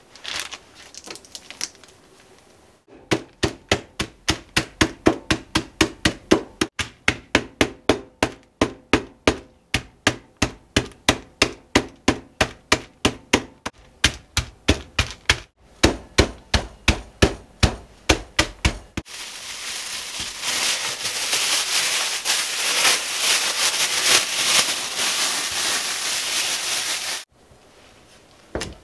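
Wooden pestle pounding mixed nuts inside a plastic bag on a countertop, crushing them: a long run of sharp thuds, about two to three a second. Then several seconds of continuous gritty crunching that cuts off suddenly.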